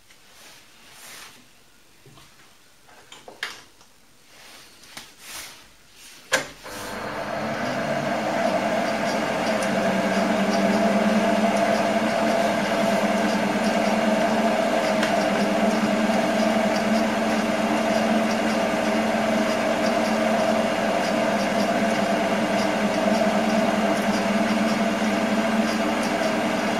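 Hand-handling clicks and rustles at the lathe. About six seconds in a sharp click, then the Optimum D180 x 300 Vario bench lathe spins up over a couple of seconds and runs steadily with a low hum and a higher whine.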